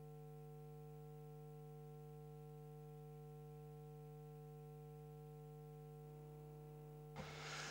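Near silence with a faint steady electrical hum made of several constant tones. A short burst of noisy rustle comes in near the end.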